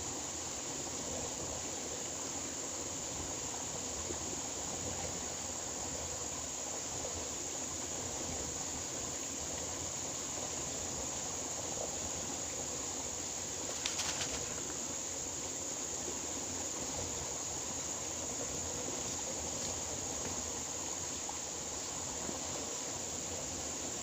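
Steady outdoor background of even, water-like rushing noise with a constant high-pitched whine, broken once about halfway through by a brief rattle of clicks.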